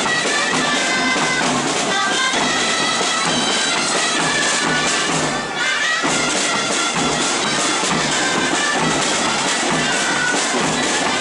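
Dance music played on loud, reedy wind instruments, a continuous tune of held and moving notes.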